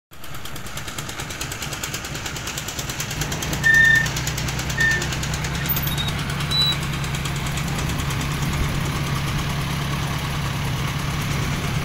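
Boat engine running steadily with a low drone that strengthens about three seconds in. A few short high-pitched peeps come between about four and seven seconds in.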